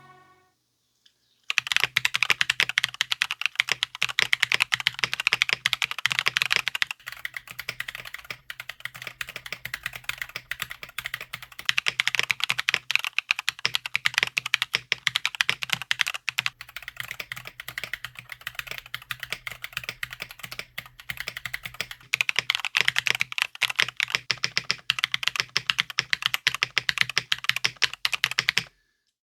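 Continuous typing on a Drop CSTM80 custom mechanical keyboard with dry, unlubed Tecsee Loong linear switches in an FR4 plate with the plate foam removed, giving a clacky sound. The typing starts about a second and a half in, runs with a few short pauses, and stops just before the end.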